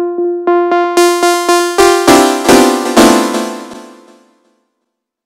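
Sawtooth synth arpeggio from Ableton's Wavetable synth, repeating notes about four times a second. With velocity mapped to the filter cutoff, the notes turn much brighter about a second in, then change pitch and ring out, stopping about four seconds in.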